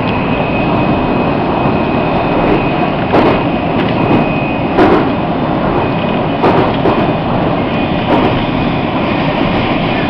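Inside a CSR electric multiple-unit passenger train running at speed: a steady rush and rumble of the wheels on the rails, with a sharp knock every second or two and a faint steady high whine.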